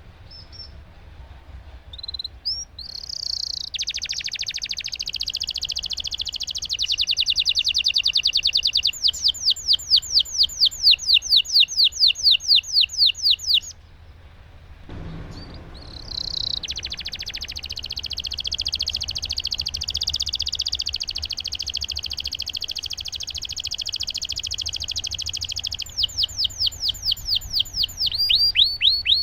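Domestic canary singing long rolling trills: two long phrases, each a sustained buzzing roll that turns into a fast run of repeated high downward-sweeping notes, with a pause of a few seconds between them.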